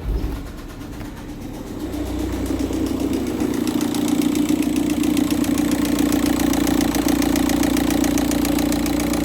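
Volkswagen Touran's 1.9 TDI four-cylinder diesel catching on a cold start and settling into a steady idle, growing louder over the first couple of seconds. A fast, regular banging or knocking comes from the engine while the oil is still cold and thick.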